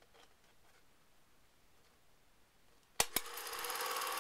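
Near silence for about three seconds, then two sharp clicks as a cine film projector is switched on, and its motor and film transport settle into a steady whirring.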